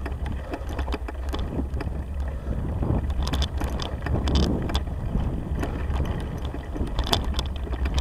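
Bicycle rolling over a bumpy grass track, with a steady low rumble and scattered rattling clicks and knocks from the bike, and wind on the microphone.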